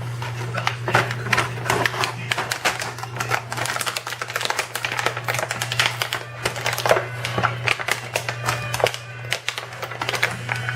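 Plastic packaging and parts being handled while an RC helicopter kit is unpacked: quick, irregular clicking and crinkling, over a steady low hum.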